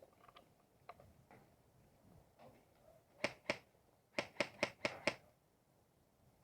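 Airsoft guns firing a string of sharp snapping shots, two and then five in quick succession, about four or five a second.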